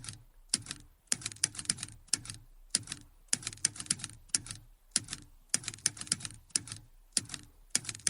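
Slow typing sound effect played back: irregular runs of sharp key clicks, a few at a time, with short pauses between them.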